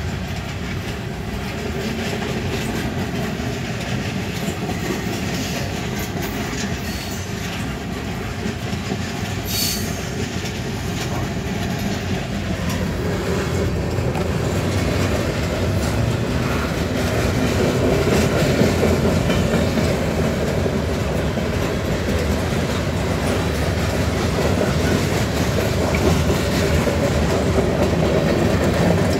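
Freight cars of a Norfolk Southern manifest train rolling past steadily, wheels clattering over the rail joints, growing somewhat louder about halfway through.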